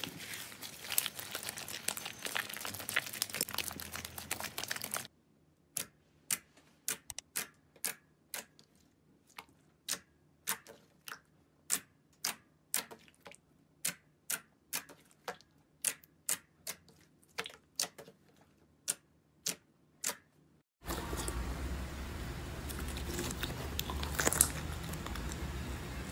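Crunchy slime being pressed and worked by hand: dense crackling, then a quieter stretch of separate sharp clicks and pops about twice a second, then dense crackling again near the end.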